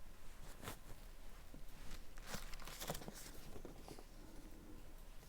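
Faint rustling of thin Bible pages being turned by hand while looking up a passage: several brief, crisp swishes.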